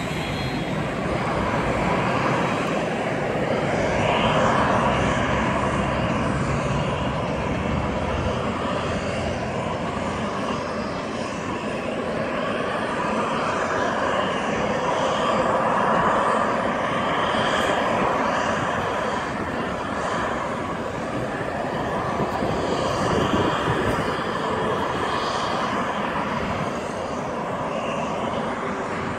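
Jet airliner engines running: a steady rushing hum with a faint steady whine, swelling and easing a little.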